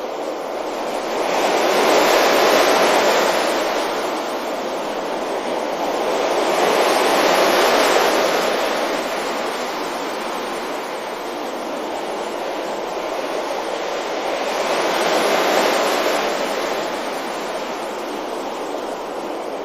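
Sea waves breaking gently on a beach: a steady rush of surf that swells and eases three times, each wave several seconds long.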